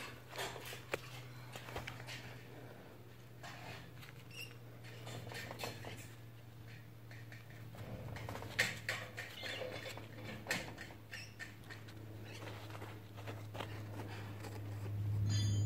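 Scattered light scratches and crackles of dry soil and fine roots being handled with a gloved hand, busiest about halfway through, over a low steady hum that grows louder near the end.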